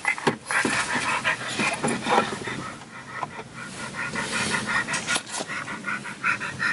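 A dog panting quickly and restlessly, about four breaths a second, agitated and not settling down.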